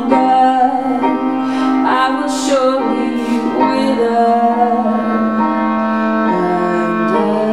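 Live song: a woman's voice singing with piano accompaniment, in long held notes.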